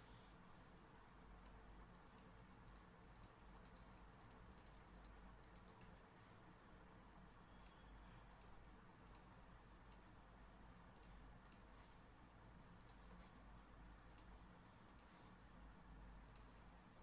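Faint computer mouse clicks, short and irregular, some in quick runs, over a steady low background hum.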